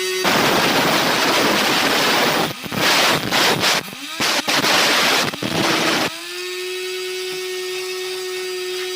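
Homemade DC-motor angle grinder cutting into material with a loud, harsh grinding noise, broken by a few short gaps where the motor's pitch climbs back up. About six seconds in the cutting stops and the motor spins free with a steady whine.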